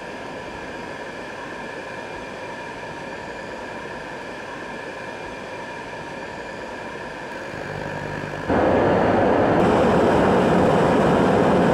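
Riello RDB kerosene oil burner's fan running steadily through its pre-purge. About eight seconds in a low buzz starts, then the burner lights with a sudden jump to a much louder, steady rush of flame. It keeps firing continuously on a new nozzle, which cured its lockout.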